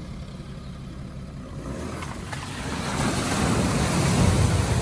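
A car driving into a flooded ford. A low engine rumble comes first; then, from about two seconds in, the rushing splash of water thrown up by the car's wheels builds and is loudest near the end.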